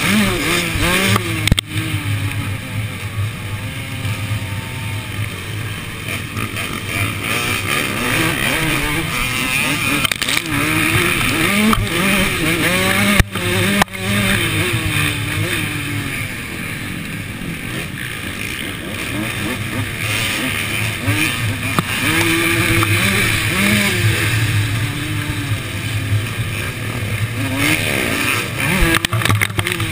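Two-stroke Suzuki RM motocross bike racing on a dirt track, its engine revving up and down again and again as the rider accelerates, shifts and backs off.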